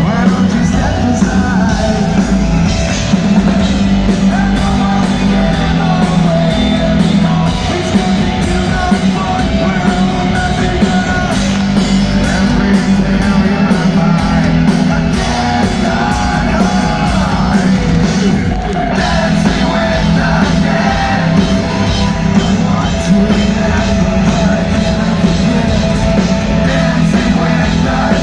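Industrial metal band playing live at full volume: distorted guitars, bass and drums with a shouted lead vocal, heard from the audience through a phone microphone.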